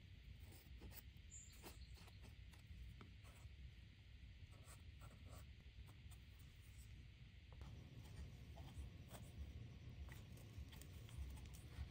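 Faint scratching and light clicks of a thin wooden stick rubbed against balsa wood, working thick CA glue into a wing rib joint. The small clicks come a little more often near the end, as a balsa wing rib is handled and set down on the plastic-covered plans.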